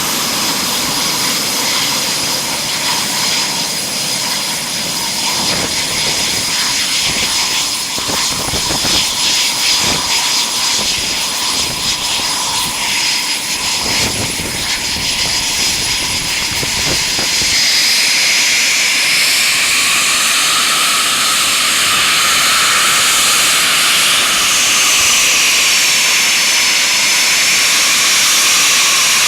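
Eurofighter Typhoon's twin EJ200 turbofan jet engines running on the ground with a steady high whine and a low rumble. About two-thirds of the way through, the sound changes abruptly to a wavering jet whine and hiss.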